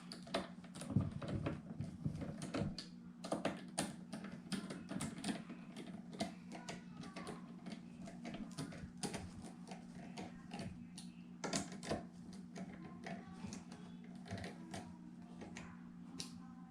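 Irregular small clicks and taps of a screwdriver driving screws and plastic parts being handled as the stand is fastened back onto an all-in-one computer, over a steady low hum.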